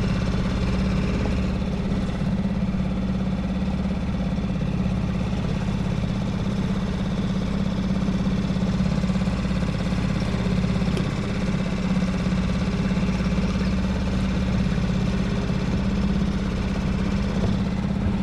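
Boat motor running steadily with an even, unchanging hum.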